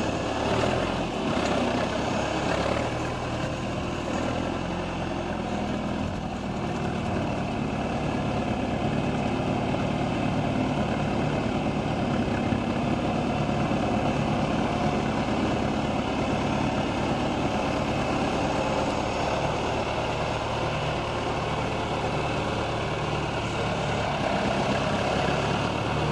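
John Deere 310A loader backhoe's engine running steadily at idle.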